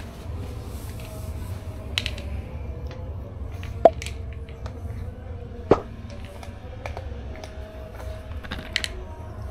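Light scattered clicks and taps of plastic food plates and a metal spoon as kittens eat and step on them, with two sharper clicks about four and six seconds in, over a low steady hum.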